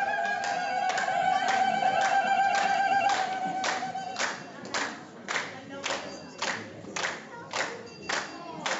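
Ethiopian Orthodox congregation singing a long held note together. About four seconds in, the singing gives way to rhythmic hand clapping, about two claps a second.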